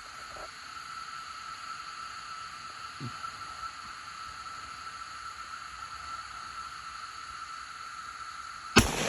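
Steady high hiss, then a single loud gunshot near the end that trails off slowly.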